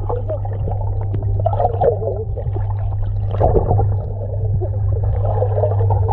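Muffled underwater sound in a swimming pool: water gurgling and bubbling over a steady low hum.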